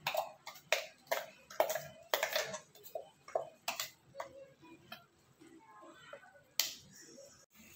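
A spoon scraping inside a steel mixer-grinder jar and knocking against its rim as thick ground masala paste is tipped out into a pan. It makes a quick run of sharp clicks and knocks for about four seconds, then goes quieter, with one more sharp knock near the end.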